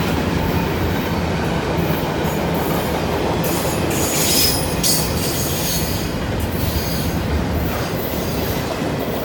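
Intermodal freight train cars rolling past with a steady, loud wheel-on-rail rumble. A high-pitched wheel squeal rises over it for about a second and a half, some three and a half seconds in.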